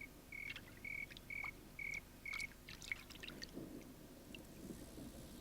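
A cricket chirping in short, even, high chirps about twice a second, stopping about two and a half seconds in, followed by faint splashing and trickling water.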